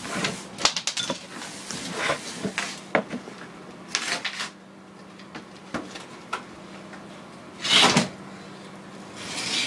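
Drywall being broken and pulled away by hand from the edge of a hole in a ceiling: scattered knocks and cracks with short scraping, crunching rasps, the loudest just before the end.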